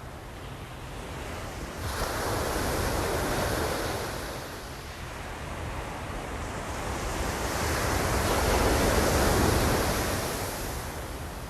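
Ocean surf breaking on the shore: one wave comes in with a sudden rush about two seconds in, and a second, louder wave builds and washes in later, then fades away.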